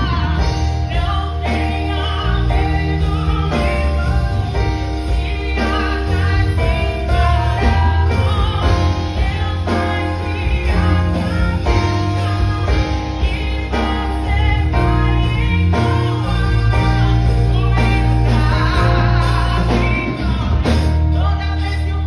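A woman singing a gospel song through a microphone, accompanied by an electric keyboard with sustained deep bass notes.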